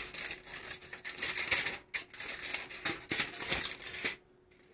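Aluminium foil crinkling and rustling in irregular bursts as it is handled and pressed into an air fryer basket, stopping shortly before the end.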